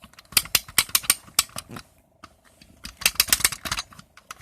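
Clockwork spring of a vintage Marx tin wind-up police motorcycle being wound with its key: rapid ratchet clicks in two runs, with a pause of about a second between them.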